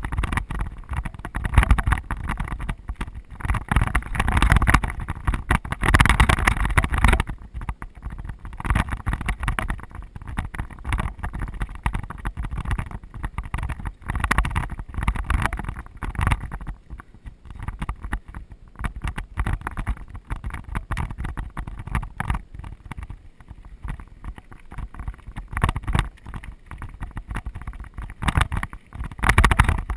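Mountain bike ridden fast down rocky desert singletrack: wind buffeting the mount camera's microphone, with constant clicks and rattles from the bike and tyres over the stony dirt.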